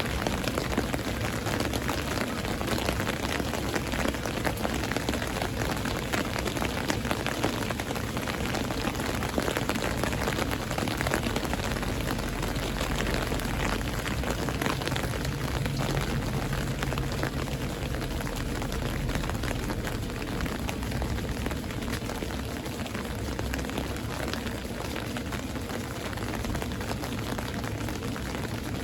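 Heavy rain pouring steadily during a thunderstorm, a dense hiss of drops on surfaces, with a low rumble underneath that swells around the middle and then eases slightly toward the end.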